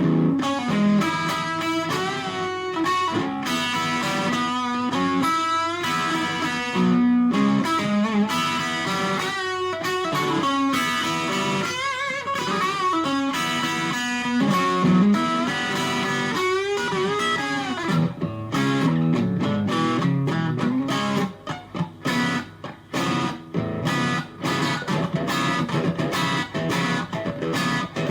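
FGN Stratocaster electric guitar, cabled straight into a small Fender Studio Valve tube amp, playing a single-note lead with string bends and vibrato. In the last third the notes turn shorter and choppier, with brief gaps between them.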